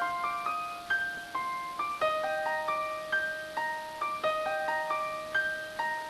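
Background music: a slow keyboard melody of single ringing notes over a held lower note that changes pitch about two seconds in.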